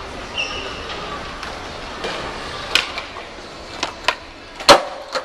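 Skateboard wheels rolling on a smooth stone floor, with several sharp clacks of the board. The loudest clack comes near the end, as the skater pops and lands a trick.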